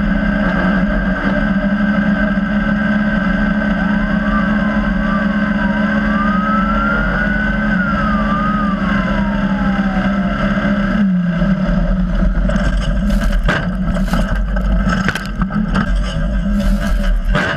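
Polaris RZR side-by-side's engine running at steady high revs at racing speed, heard from inside the car. About eleven seconds in its pitch drops slightly as the throttle eases, and the rest is broken by sharp knocks and rattles as the car crosses rough, rutted sand. For several seconds in the middle a faint thin tone wavers up and down above the engine.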